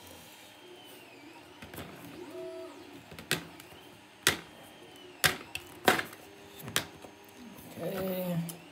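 Sharp plastic clicks and taps, about five of them roughly a second apart in the middle stretch, as a length of 3D-printer filament is worked through a pin hole in a 3D-printed handle.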